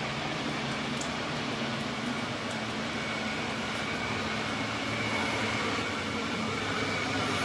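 Queensland Rail SMU 200 series electric train approaching along the platform, its running noise growing gradually louder, with a faint steady whine that comes in about three seconds in.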